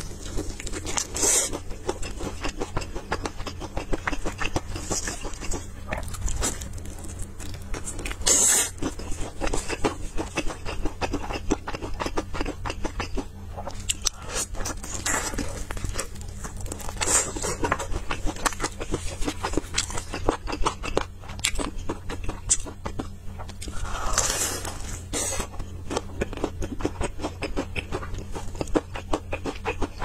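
Close-miked chewing and crunching of crispy battered Korean fried chicken, a steady run of fine crackles with several louder crunchy bites.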